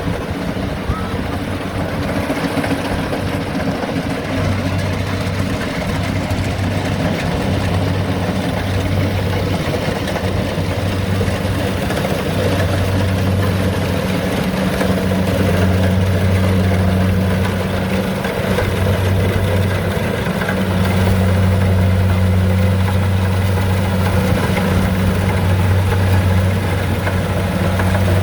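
Rice combine harvester running steadily at work, a loud engine hum with a deep drone that cuts out and comes back several times.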